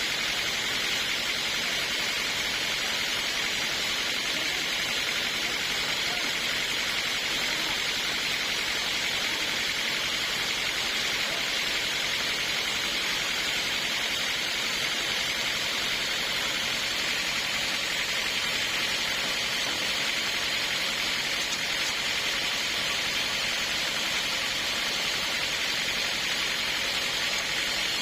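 Sawmill running steadily, a constant hiss-like noise that does not change in level or pitch.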